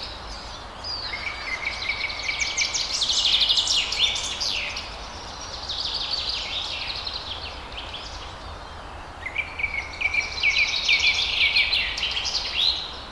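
Wild songbirds singing in a forest. Two long song bouts, at about one second and nine seconds in, each open on a held note and break into rapid trilled phrases, with softer song from other birds between them.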